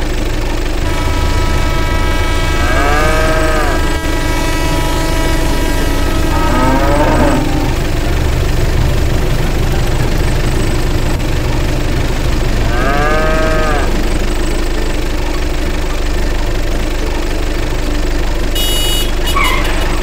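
A cow mooing about three times, each call rising and falling in pitch, over a steady low running tractor engine.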